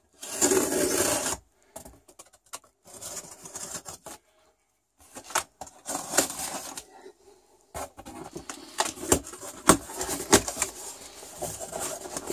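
Packing tape on a cardboard box being slit with a small blade, a loud rasping rip lasting about a second near the start, then scattered scraping and rubbing of cardboard. In the second half the box flaps are pulled open with sharp clicks and the packing paper inside rustles.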